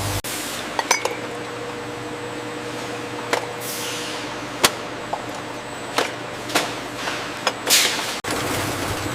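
Bottling-line machinery running with a steady hum, glass bottles clinking and knocking at irregular moments, and two short hisses, one near the middle and one near the end.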